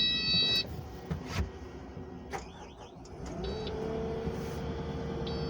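Electronics of a Kubota SVL97-2 skid steer cab: a high electronic chime at the start, then about three seconds in a small electric motor spins up to a steady whine, with short high beeps repeating about every two seconds.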